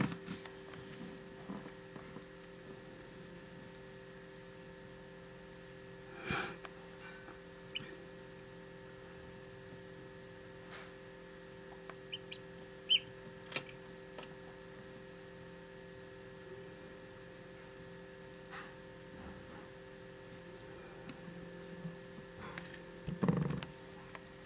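Steady electrical hum of several constant tones, with scattered clicks and knocks and, about twelve seconds in, a few faint high peeps from a hatching Jubilee Orpington chick.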